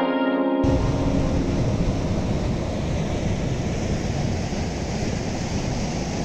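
Dam weir on the Vaigai river, water pouring over it and rushing through the channel below the sluice gates as a steady rushing noise. A guitar music track cuts off about half a second in.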